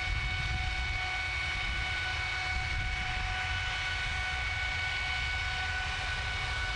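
GE90-115B high-bypass turbofan running steadily at maximum thrust (about 121,600 lb) on an engine test stand: an unchanging jet roar with a deep rumble and a steady whine of several tones.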